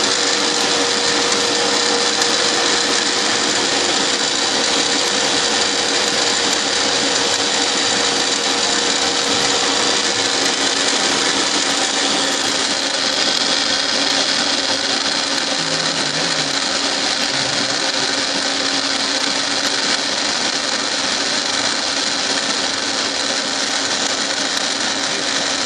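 Milling machine running, its spindle turning the cutter as it mills a helical worm thread into a blank turned by a geared dividing head. A steady machine hum and cutting noise with a constant whine.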